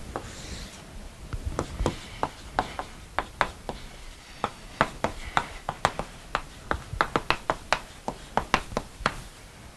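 Chalk writing on a blackboard: an irregular run of sharp clicks and taps, several a second, as each stroke strikes the board. The clicks start about a second and a half in.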